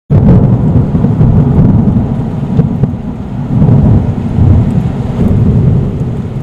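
Rolling thunder with rain: a loud, deep rumble that starts suddenly and swells and eases in waves.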